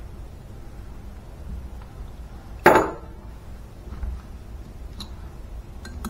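Steel spanner clanking against the Simson Schwalbe engine's alloy casing during disassembly. There is one loud, ringing metal clank a little before halfway, then a softer knock and a few light clicks, over a low steady hum.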